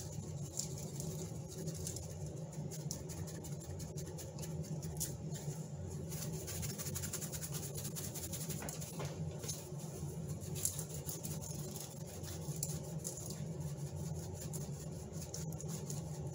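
Black pepper being dispensed from a pepper container onto fish fillets on aluminium foil: fine, irregular ticking as the grains land on the foil, over a steady low hum.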